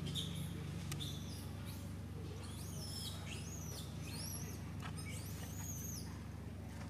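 A run of short, high-pitched squeaky animal calls, each rising and then falling, clustered in the middle of the stretch over a steady low hum.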